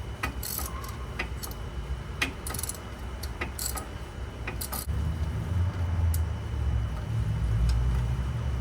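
Hand ratchet clicking in irregular strokes as it works a bolt on a wheel hub assembly, metal ticking and rattling at each stroke; the ratchet may have been set to tighten rather than loosen. From about five seconds in a low rumble comes up underneath.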